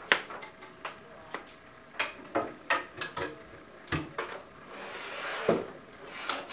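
Kitchen knife cutting apple pieces against a plastic plate: a string of irregular sharp clicks and knocks, with a brief rustling swell about five seconds in.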